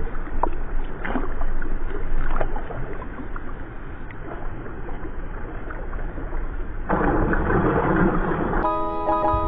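Pool water sloshing and lapping against a camera at the surface, with small clicks and splashes. About seven seconds in, a swimmer breaks the surface in a loud splash lasting about a second and a half. Plucked-string music starts near the end.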